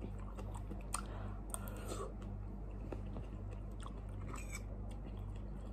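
A person chewing a mouthful of instant noodles, with a few soft clicks scattered through, over a steady low hum.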